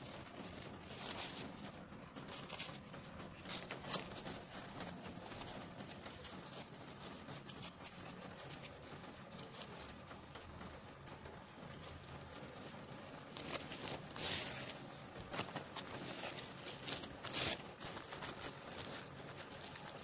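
Thin plastic bag film rustling and crinkling as it is handled and twisted, with scattered light taps and clicks; a louder crackly rustle comes about two thirds of the way through and another near the end.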